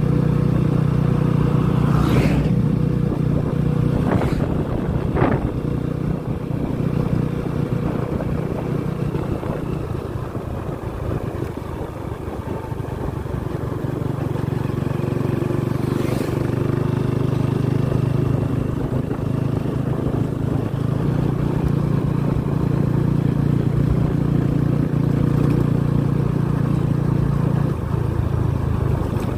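Motorcycle engine running at a steady cruising speed, with road and wind noise. It eases off about ten seconds in, then picks up again, and the bike knocks sharply over a few bumps.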